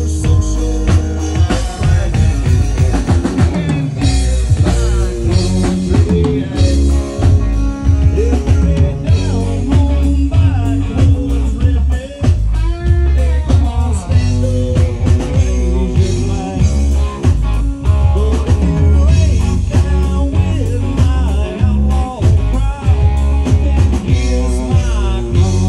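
Live country-rock band playing a song: drum kit keeping a steady beat under electric guitar and bass guitar.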